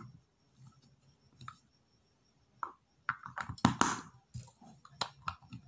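Plastic clicks and scrapes as batteries are fitted into the battery compartment of a bicycle rear light. A few light clicks at first, then a denser run of them from about three seconds in, the loudest near four seconds.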